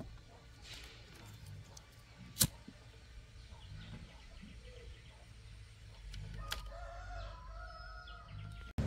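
A rooster crowing once, a long call in the last few seconds. About two and a half seconds in, a single sharp click, as of a lighter being struck.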